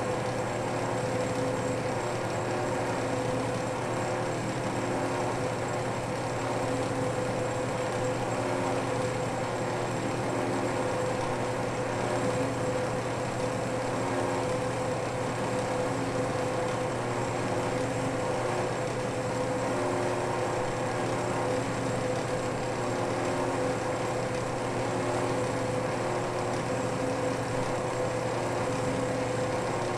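South Bend 10K metal lathe running at a steady speed, its motor and drive humming evenly, while a cutting tool turns decorative grooves into a brass rod.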